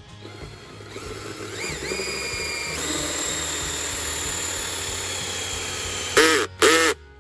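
Battery-powered drill running a 1 3/8-inch hole saw through a plastic well cap. The motor winds up with a rising whine over the first couple of seconds and cuts steadily. It then gives two short, louder bursts near the end and stops.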